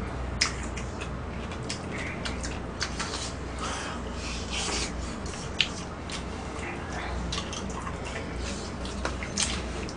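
Close-up eating sounds of braised monkfish with bean sprouts: wet chewing and slurping, with scattered sharp clicks, the loudest about half a second in and again near the middle, over a steady low hum.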